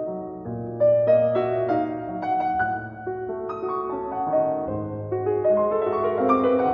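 Background music: a gentle piano melody over a bass line.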